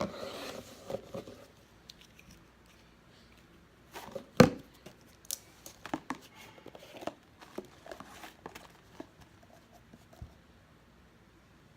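Slime ingredients and containers being handled on a table: a crinkling rustle at the start, then one sharp knock about four seconds in and a run of light clicks and rustles.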